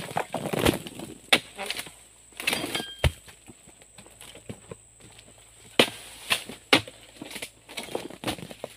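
Oil palm harvesting chisel on a long pole chopping into the frond and fruit-bunch stalks of an oil palm: a series of sharp cracks and knocks at irregular intervals, with a heavy low thud about three seconds in and rustling of the palm fronds between strikes.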